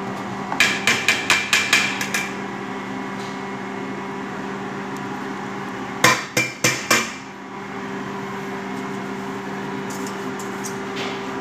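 Chef's knife chopping herbs on a plastic cutting board: a quick run of about eight strikes, roughly five a second, near the start. About six seconds in come four louder knocks, with a steady low hum underneath throughout.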